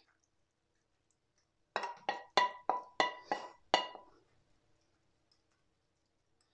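Wooden spoon knocking against a non-stick frying pan: about seven quick ringing knocks over two seconds, knocking the last of the sauce out of the pan.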